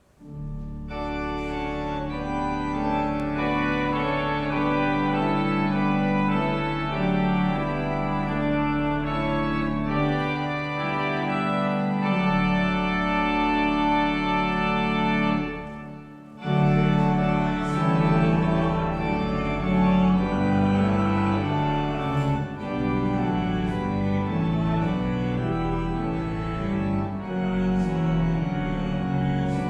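Church organ playing a hymn in full sustained chords over a held bass line, with a brief break about sixteen seconds in before the next phrase.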